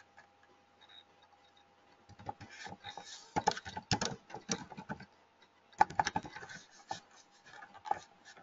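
Typing on a computer keyboard: two quick runs of keystrokes with a short pause between them.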